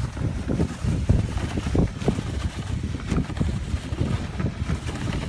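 Wind buffeting the microphone on a moving dog sled, with an uneven low rumble as the sled glides over the snow behind the husky team.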